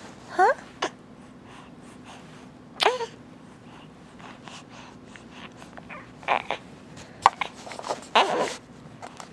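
A young infant making a few short coos and grunts: a rising squeal about half a second in, a brief coo near three seconds, then a cluster of breathier grunts toward the end.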